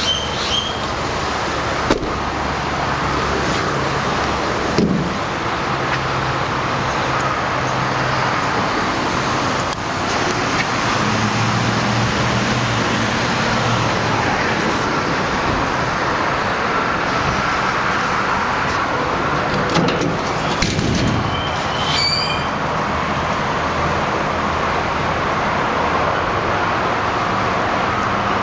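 Steady road traffic noise, with a few short handling knocks and a couple of brief engine hums from passing vehicles.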